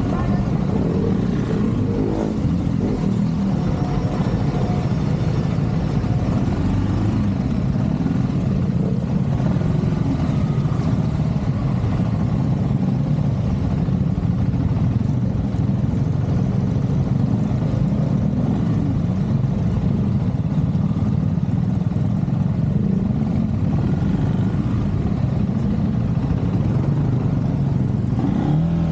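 KTM 390 motorcycle's single-cylinder engine running steadily under way, its note wavering slightly with the throttle.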